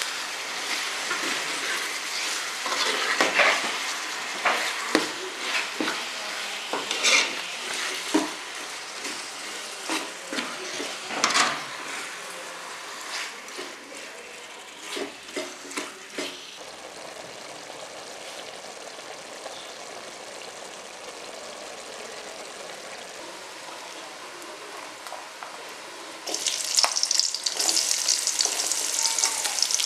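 Minced chicken and chopped onions frying in a metal pot while a metal spoon stirs them: a sizzling hiss broken by spoon scrapes and knocks against the pot. About 26 seconds in, a sudden louder sizzle starts as chopped onions go into hot oil in another pan.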